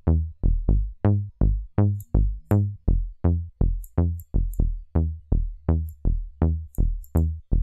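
Synthesized trombone-style bass from Native Instruments Massive, a saw wave through a four-pole low-pass filter, playing a looped pattern of short deep notes about three to four a second. Each note opens bright and quickly closes as the filter envelope decays. Faint high ticks sound now and then.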